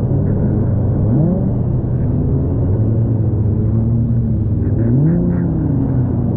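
Jet ski engine running at speed, its pitch climbing about a second in, then dipping and climbing again around five seconds as the throttle changes, over the rush of water and spray against the hull.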